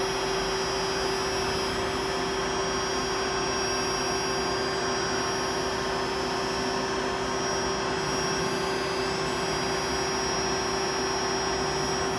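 Steady whirring hum of a powered-up Brother TC-S2A CNC drill tap center, with one constant mid-pitched tone and a fainter high whine, unchanging in level.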